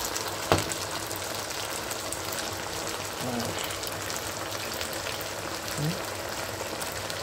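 Pan of red sea bream and okra sauce sizzling steadily on the hob, with a fine crackle throughout. A sharp knock about half a second in.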